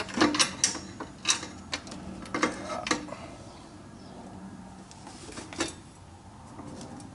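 Hand tools and steel mounting hardware clinking and knocking in a few scattered light strikes, mostly in the first three seconds, with one more later on, as crash bars are bolted to a motorcycle frame.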